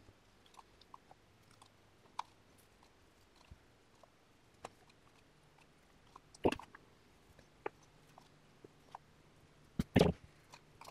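Faint scattered clicks and scrapes of a glue brush working wood glue in a paper cup, with louder clatters about six and a half and ten seconds in.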